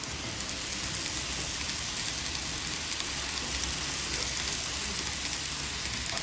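N gauge model train running on the layout: a steady rolling rumble and hiss of small wheels on the track, with a low motor hum.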